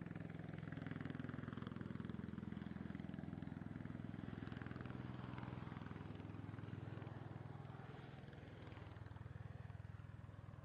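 V-22 Osprey tiltrotor's engines and rotors running, a steady drone with a fast pulsing beat that fades somewhat near the end.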